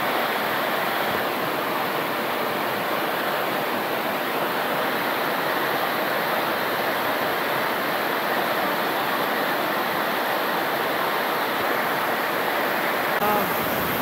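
Waterfall rushing, a steady, unbroken roar of falling water.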